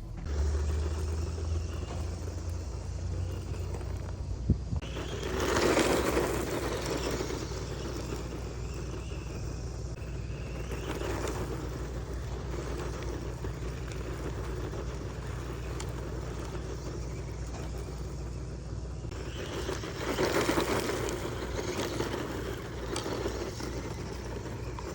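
Hosim 1:10 brushed-motor RC truck driving over rough ground, its motor and tyres making a steady scraping rumble that swells louder twice.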